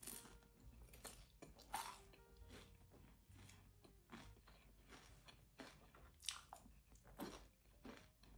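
Someone biting into and chewing crispy fried tofu and candied walnuts: a series of irregular crisp crunches, roughly one every second, over soft background music.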